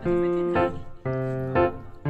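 Background music: piano or electric keyboard playing a slow run of sustained chords, changing about every half second.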